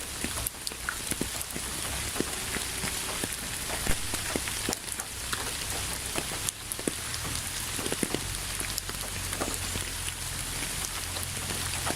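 Steady rain falling on a surface, a constant hiss with many individual drops pattering and clicking through it.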